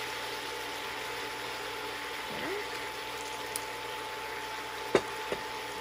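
Soy sauce and vinegar bubbling around chicken thighs in a hot pan, a steady simmering hiss. There is a sharp click about five seconds in, followed by a softer one.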